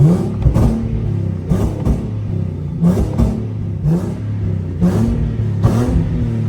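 Nissan 370Z's 3.7-litre V6 exhaust, flame-tuned and running resonated test pipes, revved up and then blipped about once a second over held revs. Sharp pops and cracks from the exhaust come with the blips as it spits flames.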